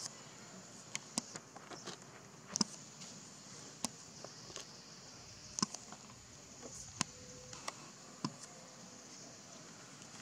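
Steady high-pitched drone of insects, with about a dozen irregular sharp clicks and ticks scattered through it.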